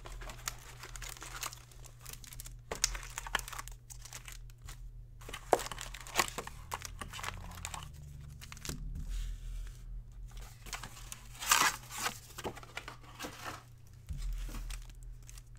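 Plastic shrink wrap crinkling and tearing off a trading-card hobby box, then foil card packs rustling and clicking as they are handled and stacked, with a few sharper crackles along the way.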